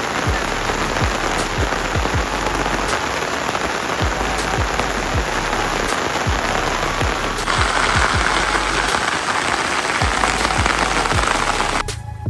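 Steady rain pattering on a surface, with a faint thumping beat of background music underneath. The rain gets louder about two-thirds of the way in and cuts off suddenly just before the end, leaving the music.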